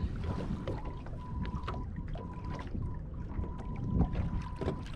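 Wind and water noise around a small aluminum fishing boat, with scattered light knocks and clicks from movement in the boat, the loudest a few near the end. A faint steady high tone comes and goes.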